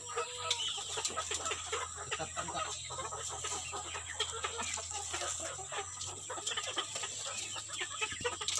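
Flock of chickens clucking and calling in their coop, many short overlapping calls, over a steady low hum.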